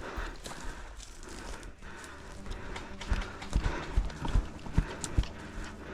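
Heavy footsteps thudding on the ground, about two to three a second, starting about three seconds in.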